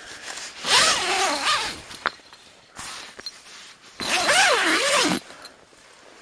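Zipper of a camouflage tent door pulled in two long rasping strokes, each about a second, their pitch rising and falling with the speed of the pull.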